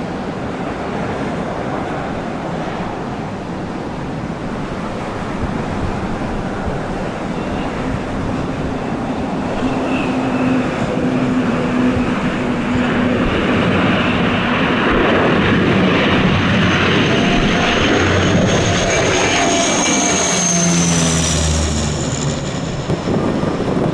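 Airliner engines on a landing approach, growing louder and passing with a falling pitch near the end, over heavy wind noise on the microphone.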